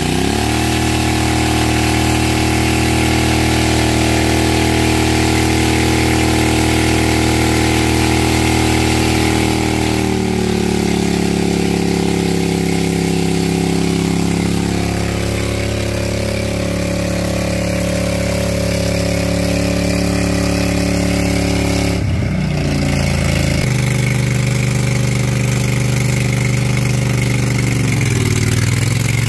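Lawn tractor engine running steadily just after being jump-started. Its pitch shifts about a third of the way in, wavers briefly later, and slides down near the end.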